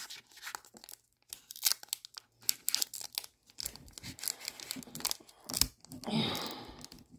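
Foil wrapper of a Pokémon booster pack crinkling and being torn at by hand, in many short crackles with a longer rip-and-crinkle about six seconds in.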